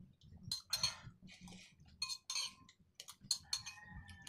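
Spoon clinking and scraping against a bowl, with short slurps as sardine-and-miswa noodle soup is sipped from the spoon.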